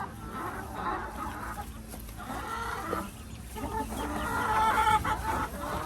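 Hens clucking and calling inside a chicken coop, a run of uneven calls that grows loudest near the end.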